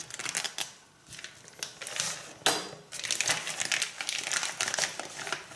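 Clear plastic bag of raw meat crinkling and rustling as it is handled, in several irregular bursts of crackle.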